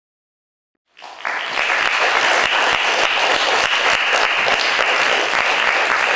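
Audience applauding steadily, starting abruptly about a second in.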